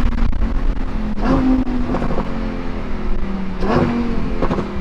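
Lamborghini Huracán's naturally aspirated V10 running while driving, heard from inside the cabin; its pitch slowly falls, with a few short bursts of noise about a second in and near the end.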